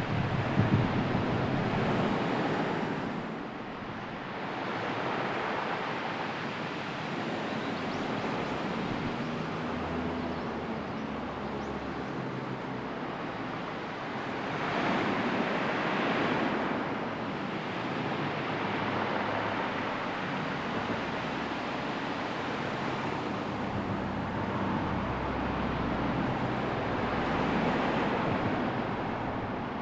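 Sea waves washing ashore, rising and falling in slow surges, with some wind.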